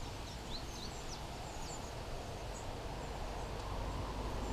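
Riverside outdoor ambience: a steady low rumble with a few faint bird chirps in the first couple of seconds.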